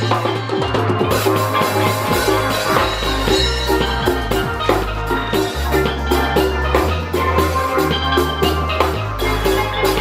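Steelpan music with a drum kit and a bass line.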